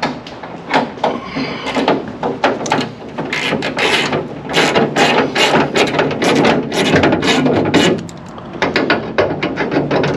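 Hand ratchet wrench clicking in quick runs as it is swung back and forth, running nuts onto the hood scoop's mounting bolts from under the hood, with a short pause about eight seconds in.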